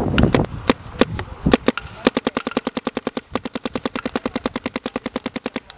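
Planet Eclipse Geo 3.5 paintball marker, fed by a Dye R2 loader, firing paintballs: a few separate shots at first, then a fast even string of about twelve shots a second, broken by a short pause about three seconds in, that cuts off suddenly near the end.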